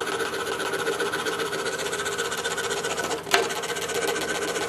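DeWalt scroll saw running and cutting wood, a steady reciprocating whir that starts abruptly, with one sharp click about three seconds in.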